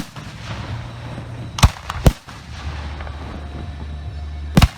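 Professional display fireworks going off: sharp bangs at uneven intervals, one at the start, two close together in the middle and one near the end, over a steady background din.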